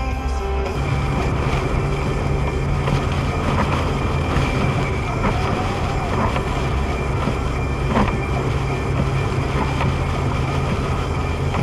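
Steady drone of a car driving at motorway speed in rain, heard from inside the cabin. One short knock comes about eight seconds in.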